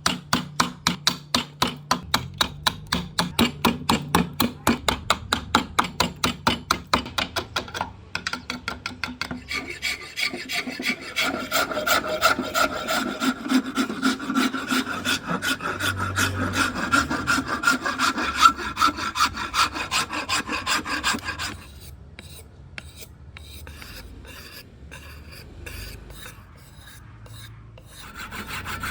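A rasp or file working a tamarind-wood hatchet handle in quick back-and-forth strokes, about three a second at first, then faster and with a ringing tone, and much fainter over the last several seconds.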